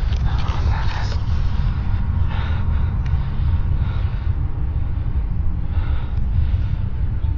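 A loud, low, steady rumbling drone, one of the unexplained 'strange sky sounds', with a few faint, brief noises above it.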